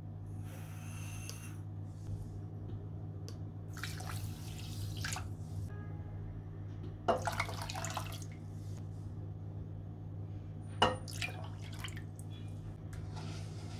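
Kitchen preparation sounds: small dripping, liquid sounds and short scrapes, with a sharp knock around the middle and a louder one about four seconds later, over a steady low hum.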